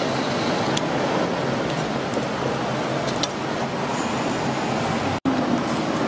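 Steady street noise with passing traffic, with a few faint clicks of a metal pick against the cast-iron bread mold. The sound cuts out for an instant about five seconds in.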